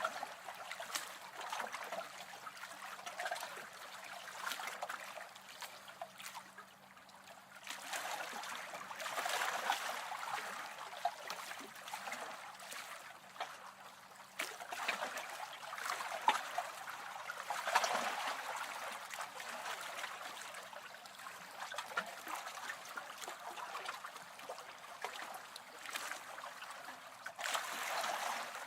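Small lake waves lapping and splashing against the shore, rising and falling in uneven swells a few seconds apart, with small sharp splashes.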